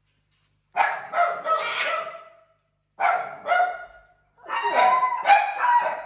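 A puppy barking in three quick bouts of sharp yaps, set off by someone arriving home.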